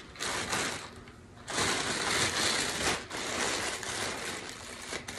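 Thin plastic shopping bag crinkling and rustling as hands rummage in it and pull clothes out, in two spells: a short one at the start, then a longer one from about a second and a half in.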